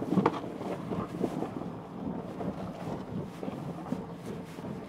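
Rivian R1T electric pickup crawling over a rough, rocky dirt trail, heard from inside the cab: no engine note, just an uneven rumble of irregular knocks and thumps from the tyres and suspension going over the ruts and stones, with a sharper knock right at the start.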